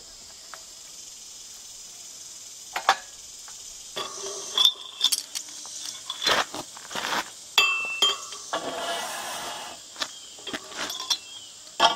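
Irregular metal clinks and knocks of galvanized well pipe, fittings and chain being handled at a wellhead, with a short scraping noise near the middle, over a steady chorus of crickets.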